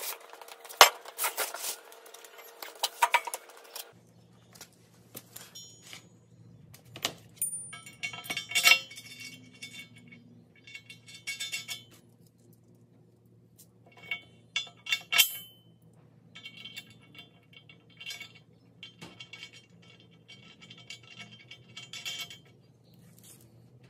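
Metal clinking and rattling of bolts and a wrench against a steel tractor subframe as it is bolted in place, in short spells of rapid clicks and taps, with a few louder knocks in the first seconds. A faint steady hum runs underneath from about four seconds in.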